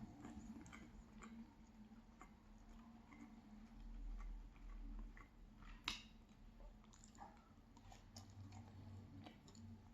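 Faint chewing of a fried cheese pancake, with small scattered mouth clicks and one sharper click about six seconds in.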